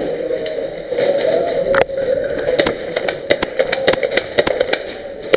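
A steady mechanical drone runs throughout, broken by sharp, irregular cracks of airsoft gunfire and BB impacts, which come thicker from about two seconds in.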